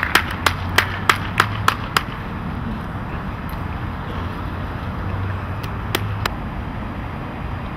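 Hand claps, about four a second for the first two seconds, then a steady low rumble of background outdoor noise.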